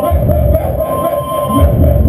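Loud live industrial music: a heavy, pulsing low beat under a dense, harsh wash of noise, with a high held tone that comes and goes.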